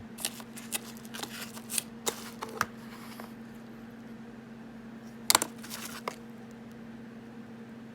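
Unboxed items being handled: light rustles and taps for the first couple of seconds, then a sharp clatter a little past five seconds in, over a steady low hum.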